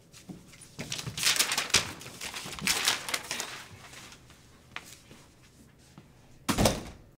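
A few seconds of scuffing and rustling, then a door swinging shut with a heavy thump near the end.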